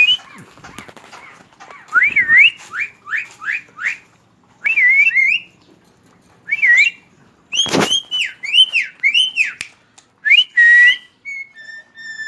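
Javan myna whistling a string of short notes that slide up and down, in separate phrases with pauses, and giving one loud harsh call about two-thirds of the way through.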